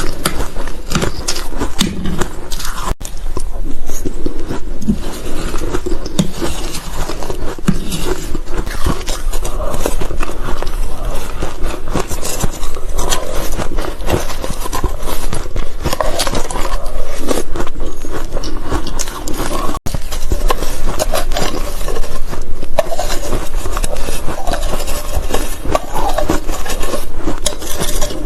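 Close-miked biting and chewing of ice: dense, crisp crunching and crackling that goes on without pause, with two momentary breaks.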